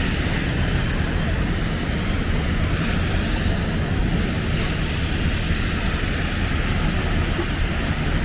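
Steady rumbling, rushing city street noise in a snowstorm, with a deep low rumble throughout.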